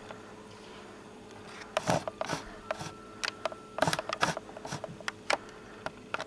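Handling noise from a hand-held camcorder: scattered clicks and knocks, bunched in the middle few seconds, over a faint steady hum.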